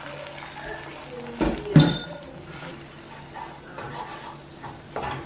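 Spatula stirring beaten eggs in a frying pan, knocking against the pan twice in quick succession about a second and a half in, and once more near the end.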